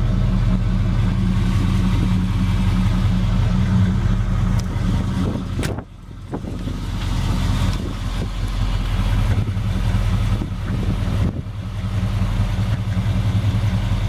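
Chevrolet 454 big-block V8 idling steadily with a low, even rumble, with a brief break about six seconds in.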